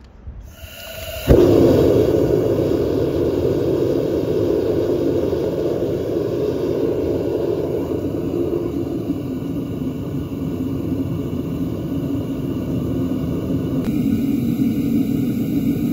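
Homemade gas-cylinder forge's gas burner lighting with a sudden whoomp about a second in, then running with a loud, steady roar.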